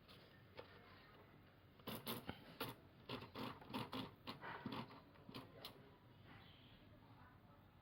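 Royal TA 240 typewriter typing: a quick, uneven run of sharp key clacks beginning about two seconds in and stopping just before six seconds, with faint hiss around it.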